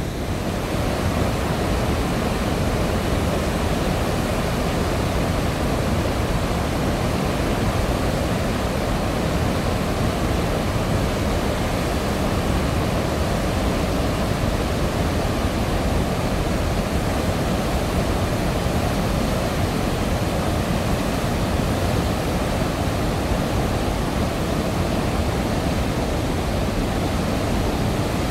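Floodwater pouring through a river dam's open spillway gates, rushing and churning below the gates in a steady roar.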